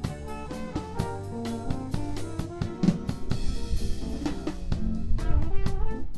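Drum kit played with sticks, close up, in a live band's bossa nova: a busy run of snare and bass drum hits over the band's sustained pitched notes.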